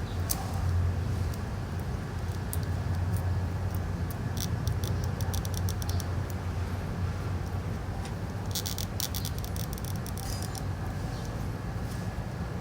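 Small tools and tiny metal parts clicking and rattling in quick clusters, twice, as an iPhone 6S is worked on for a battery replacement, over a steady low hum.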